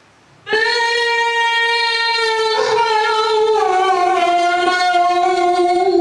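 A single voice begins chanting about half a second in, loud and sustained, holding long notes that step down in pitch, in the melodic style of Quran recitation.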